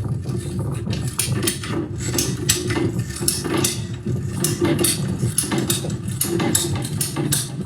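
Husky ratcheting plastic pipe cutter working through 1.5-inch PVC pipe: repeated sharp clicks, about two or three a second, as the handle is pumped and the ratchet advances the blade, over a steady low hum.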